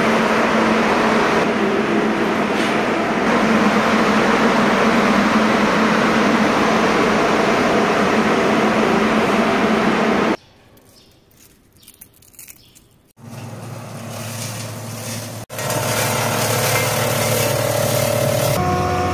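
Loud, steady whir of industrial food-processing machinery, cutting off suddenly about ten seconds in. After a few quiet seconds a crushing machine for dried onion flakes starts up with a low hum and runs steadily, louder near the end.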